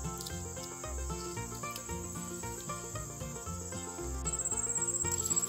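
Insects chirring steadily in a high, thin band, which turns louder and more rapidly pulsed about four seconds in, over soft background music.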